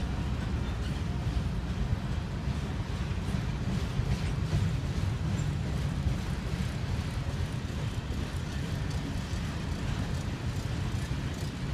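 Covered grain hopper cars of a Canadian Pacific freight train rolling past on the rails: a steady low rumble of steel wheels on track, with a few faint ticks.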